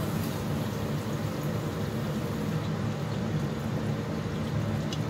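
Steady low rumble with a faint hiss from a curry cooking in a steel kadhai on the stove.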